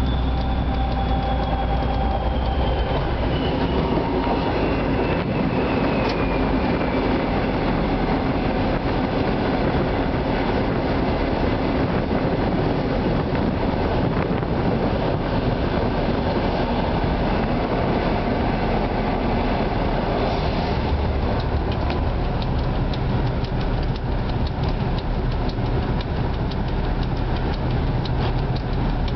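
2M62 diesel locomotive under way, heard from its rear cab: a steady rumble of wheels on rail over the low drone of its two-stroke V12 diesel. A high tone falls slowly in pitch over the first several seconds, and rail-joint clicks grow more regular in the second half.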